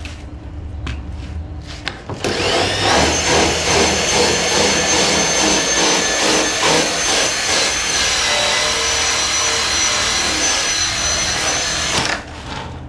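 Small handheld power buffer with a yellow foam pad polishing the paint of a Corvette quarter panel: after a few short clicks it winds up about two seconds in, runs with a steady high whine, and stops abruptly near the end.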